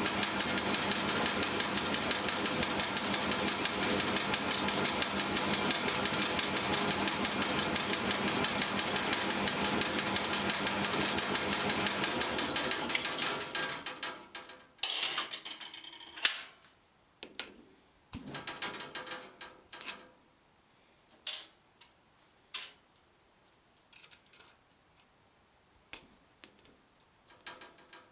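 A workshop machine runs loudly and steadily with a fast, dense rattle over its hum, then winds down and stops about 13 seconds in. It is followed by a short burst of noise and a string of separate clicks and knocks of handling.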